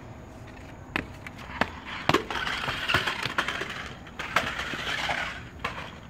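FastLane plastic RC stunt car tumbling down concrete steps: a string of sharp knocks and clatters, starting about a second in and running for about four seconds.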